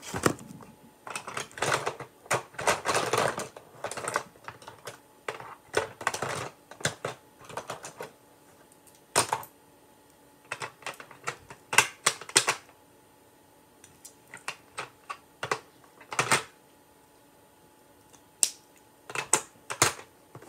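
Small plastic items clicking and clattering as a hand rummages through a plastic storage bin. The clicks and rustles come in irregular clusters, busy for the first several seconds and then sparser, with short pauses between them.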